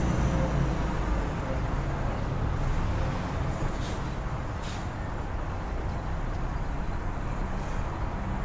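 Street traffic ambience: a steady low rumble of road vehicles.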